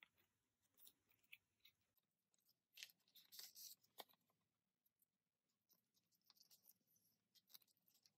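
Near silence, with a few faint soft clicks and a brief rustle about three to four seconds in: photocards and plastic card sleeves being handled in a binder.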